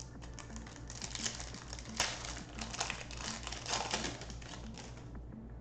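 Foil wrapper of a trading-card pack being torn open and crinkled by hand: a dense run of sharp crackles, loudest about two seconds in.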